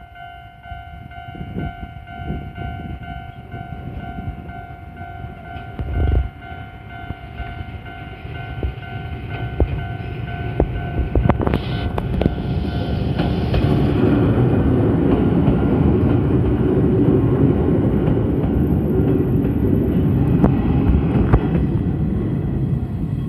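Level crossing bell ringing in a steady, evenly repeated ding. An Izuhakone Railway 5000 series electric train then approaches and passes close by, its rumble building through the middle and drowning out the bell for the last third.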